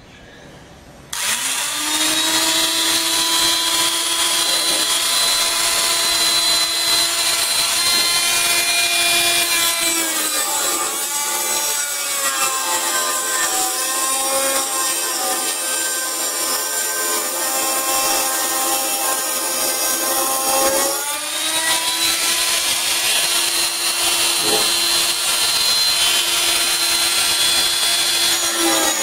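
Electric angle grinder switched on about a second in and running at a steady high whine. From about 10 s to 21 s its pitch sags and wavers as the disc bears into steel, then it runs free again, and it starts to bite again at the very end.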